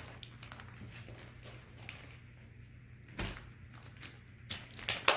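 Light handling noises: a few scattered knocks and clicks, the sharpest just before the end, over a steady low hum.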